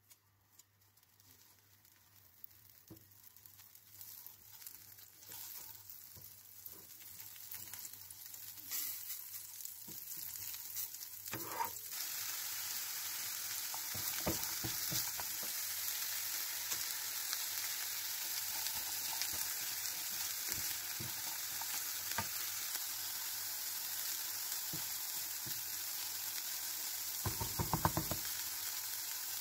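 Cooking oil heating in a nonstick frying pan, crackling faintly and growing louder; about twelve seconds in, diced onions go into the hot oil and a steady sizzle takes over. Near the end a spatula stirs and scrapes the onions around the pan.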